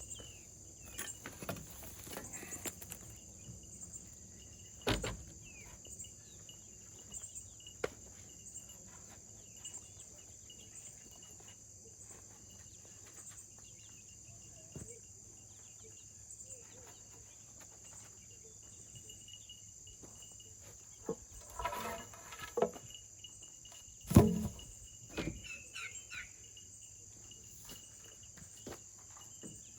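Steady high insect chirping, with a few scattered thuds and scrapes; the loudest thud comes about 24 seconds in.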